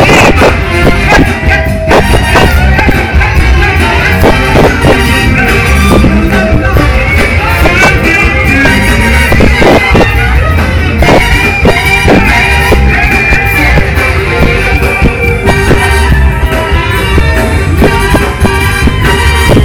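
A live funk band playing loudly, with a steady drum beat.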